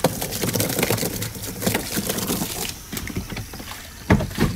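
Water splashing and sloshing in a bucket, with irregular knocks and clatter.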